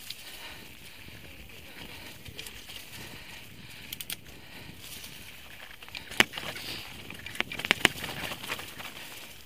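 Mountain bike descending a rocky dirt trail: a steady rolling hiss of the tyres on dirt and stones. Sharp clacks and rattles come as the bike hits rocks, the loudest in a cluster past the middle.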